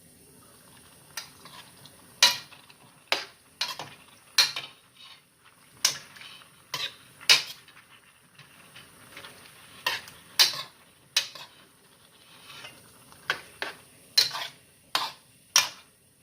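Cooking utensil knocking and scraping against a pan while stirring chicken wings in sauce: a string of sharp, irregular clacks.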